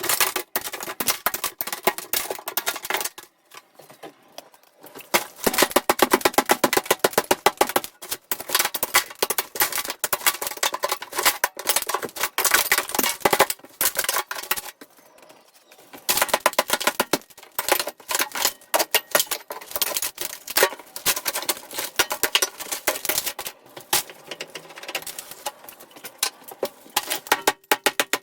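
A fast, uneven run of sharp clicks and knocks, many per second, that stops briefly twice.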